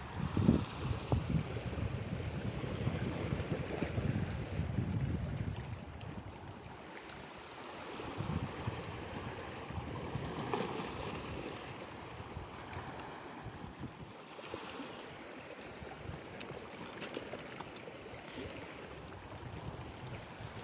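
Small sea waves washing against shoreline rocks, a steady noisy wash. Wind rumbles on the microphone in gusts for the first several seconds, then eases.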